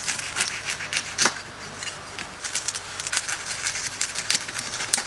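Kitchen knife sawing through a roll of deep-fried crispy pork belly: the puffed crackling skin crunches in many small, irregular sharp cracks, with a couple of louder snaps near the end.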